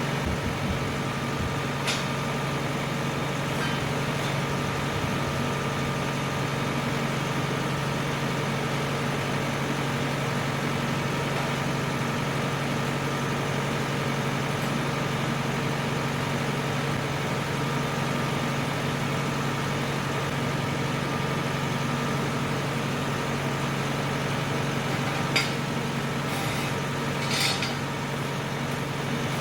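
Tractor engine running steadily with a constant low hum, and a few brief clicks near the end.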